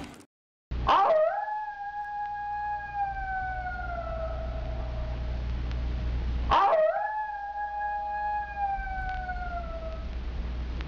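A wolf howling twice, each howl a quick rise into one long, slowly falling tone lasting about three and a half seconds, over a low steady rumble.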